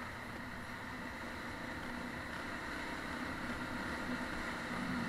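Motorcycle running steadily on the move, with wind and road noise and a faint low engine note.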